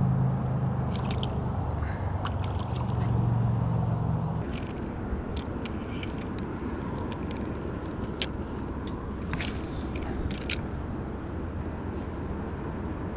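A steady low engine hum that cuts off about four and a half seconds in, leaving steady background noise with a few faint scrapes and clicks.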